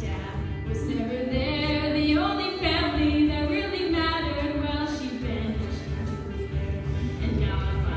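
A young male voice singing a song into a microphone, with instrumental accompaniment underneath.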